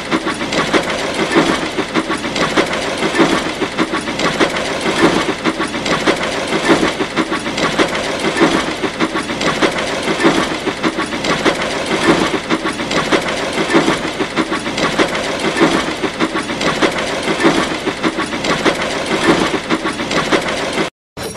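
Steam locomotive running sound effect: a steady rhythmic chuffing, about one beat a second, over continuous rattling and hissing.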